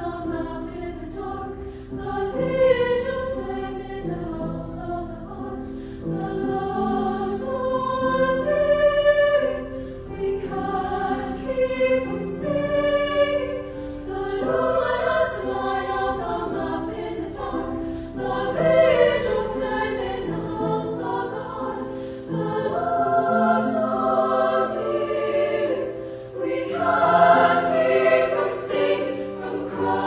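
Women's choir singing in several parts, sustained chords that shift from phrase to phrase, with sung words.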